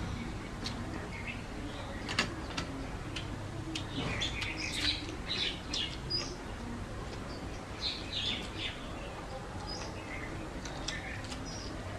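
Eating noises: fingers squelching through water-soaked rice, with wet chewing and lip-smacking. Scattered short clicks and brief high squeaks come thickest about four to five seconds in and again around eight seconds.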